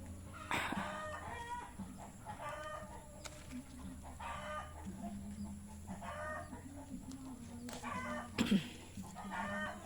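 Chickens clucking and calling, one short call about every one to two seconds, over a faint low steady hum.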